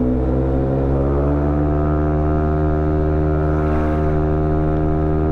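Yamaha Gravis 125 scooter's single-cylinder engine at full throttle through an aftermarket JVT power pipe exhaust. Its note climbs over the first couple of seconds, then holds steady at high revs as the CVT pulls toward top speed.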